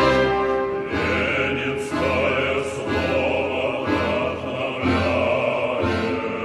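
Choral singing with an orchestra: a choir holding long notes that change about once a second over orchestral accompaniment.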